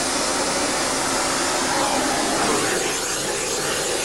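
Gas heating torch burning with a steady hiss while it heats an aluminium Shovelhead cylinder head for valve-seat installation.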